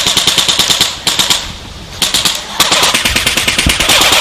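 Airsoft electric guns (AEGs) firing on full auto, a fast even rattle of shots. A burst runs for about a second and a half, a short burst comes about two seconds in, and a longer burst follows to near the end.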